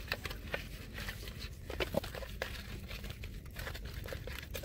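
Hands rubbing turmeric and salt into scored whole hilsa fish: a run of soft, irregular handling noises and small clicks.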